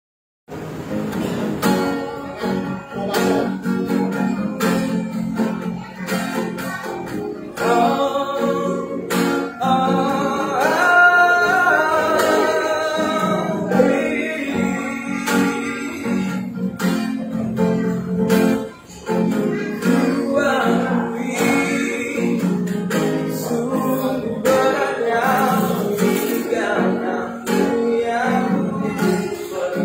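A man singing while strumming an acoustic guitar, the strums keeping a steady rhythm under his voice; it starts about half a second in.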